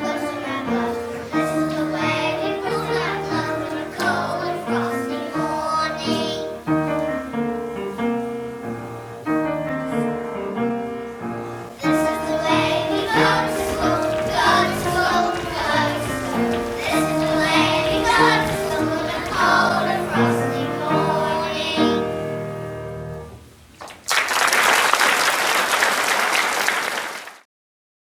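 A class of children singing along to recorded backing music, the song fading out after about 23 seconds. Then about three seconds of even noise like clapping, which cuts off suddenly.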